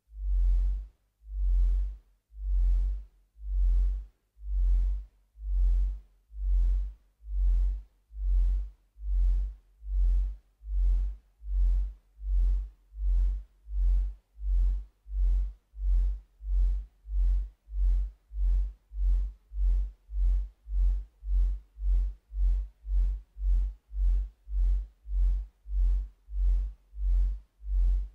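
Electronic dance-score music: a deep bass pulse repeating with short silences between, speeding up from about one beat a second to about two a second.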